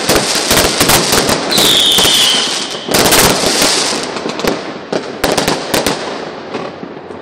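Fireworks going off: many sharp cracks in quick succession, with a short falling whistle about two seconds in. The bangs thin out over the last few seconds.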